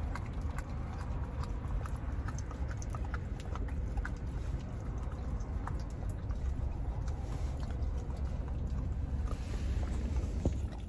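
A dog licking and lapping at a frozen custard treat, a run of small irregular wet clicks and smacks, over a steady low rumble from the car.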